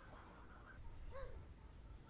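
Near silence in the pause between moos: a faint low background rumble, with one brief faint tone that rises and falls about a second in.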